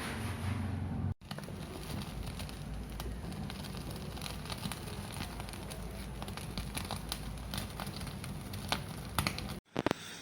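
Hot cooking oil sizzling and crackling in a pan, a steady hiss with many small pops, cutting out briefly about a second in and again near the end.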